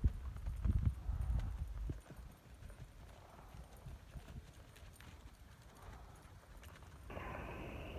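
Bare hooves of a gaited mule clip-clopping on a dirt and gravel track at a walk, clearest in the first two seconds and fainter after.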